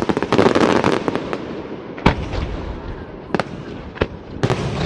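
Aerial firework shells bursting: a quick volley of sharp cracks, a heavy boom about two seconds in, a couple of single cracks, then another rapid volley near the end.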